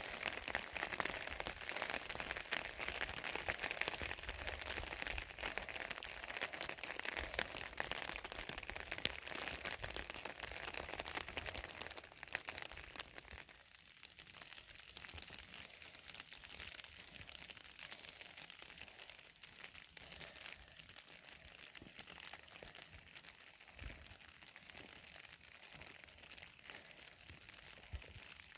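Steady rain pattering, a dense hiss of fine drop ticks that drops to a quieter level about halfway through. A couple of low thumps sound near the end.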